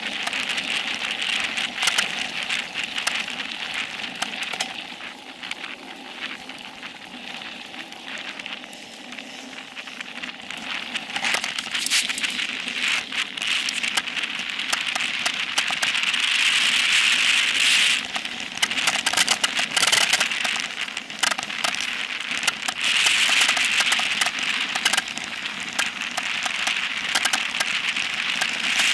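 Specialized Epic Pro mountain bike descending dirt singletrack at speed: a steady rush of tyre noise on the trail, full of crackles of grit and small stones and clicks and rattles from the bike. It swells louder twice in the second half.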